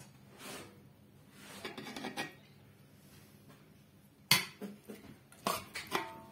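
A metal spoon scraping softly through rice and gravy in metal cooking pots, then clinking sharply against the pots several times. The first clink, about four seconds in, is the loudest, and the last ones ring briefly.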